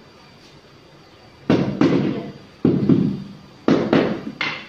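About seven sharp knocks in quick pairs on a large ceramic floor tile, tapping it down to bed it and bring it level with the tiles beside it. Each knock dies away over about half a second.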